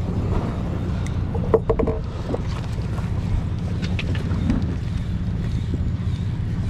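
Fishing boat's engine running steadily with a low hum, and a short knock about a second and a half in.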